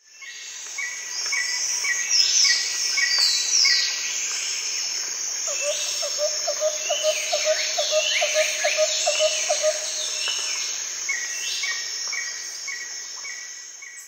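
Outdoor bird and insect chorus: several birds chirping and calling with quick falling notes over a steady high insect drone, and a lower call repeated about three times a second for several seconds in the middle. It fades in at the start and fades out near the end.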